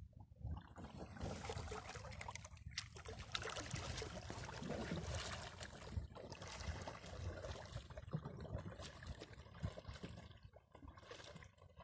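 Water trickling and splashing around a kayak, with many small drips and knocks, fading near the end.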